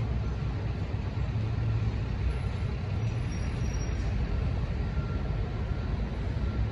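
Steady low rumble of road traffic and vehicle engines near the railroad crossing.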